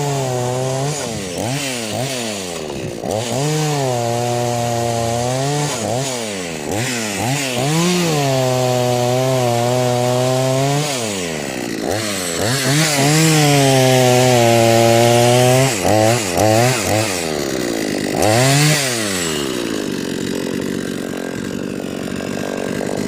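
Two-stroke chainsaw being throttled up and down: it revs from idle to full speed and back several times, holding at full throttle for a few seconds at a time, with a harsher, noisier full-throttle stretch around the middle. It drops back to a steady idle near the end.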